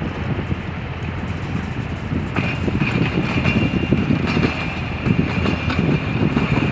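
Heavy machinery rumbling, with irregular knocks. A steady high-pitched whine sets in suddenly a little over two seconds in and keeps going.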